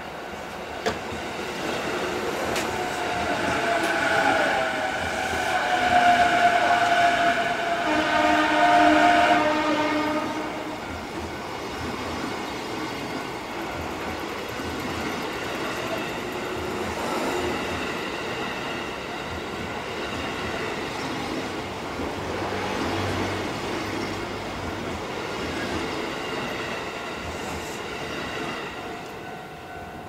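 An Ome Line commuter train, a JR East E233 series, passes over a Japanese level crossing, loudest in the first ten seconds with a falling whine, then running on more steadily. The crossing's electronic warning bell rings over it, standing out near the end as the train noise fades.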